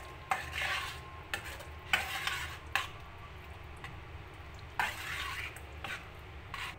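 Metal spoon stirring a thick mixture of yogurt, cooked apple and coconut paste in a metal pan. It makes short wet scraping strokes, with now and then a clink of the spoon against the pan.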